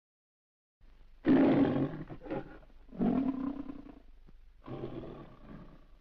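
A lion roaring three times, each roar under a second long with short gaps between: the MGM studio logo roar that opens the cartoon.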